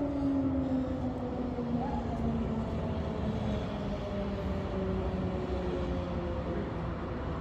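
Civil defence air raid siren winding down, its tone slowly falling in pitch, over a low city rumble.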